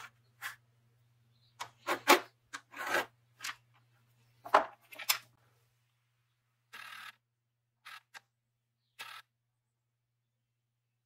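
Sharp clicks and taps of a thin steel wire coat hanger being handled on a plastic work mat: a quick irregular run of them over the first five seconds, then a few softer handling noises later.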